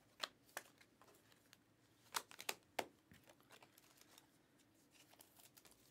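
Faint clicks and flicks of glossy Panini Prizm football cards being slid one by one off a stack in the hands. There are a couple of sharp ticks near the start and a small cluster about two to three seconds in, with near silence in between.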